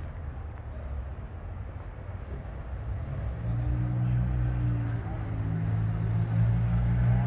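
Street traffic noise with a vehicle engine running nearby. Its low, steady hum grows louder from about three seconds in.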